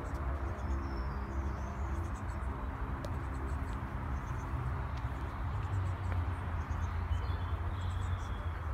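Outdoor garden ambience: a low rumble of wind on the microphone, with faint bird chirps about a second in and again near the end.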